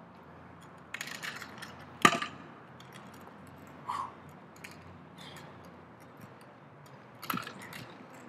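Heavy steel beer keg clanking as it is gripped and shifted on concrete: one sharp metallic clank about two seconds in, the loudest, with smaller clinks and knocks about a second in and again near the end.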